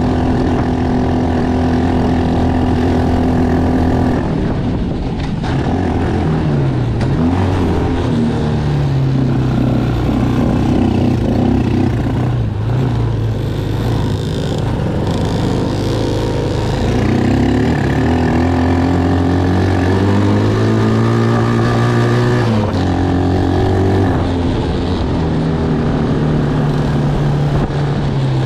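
Small Tao Tao ATV engine running while riding a dirt trail, its pitch rising and falling with the throttle. A dirt bike's engine runs close by at times.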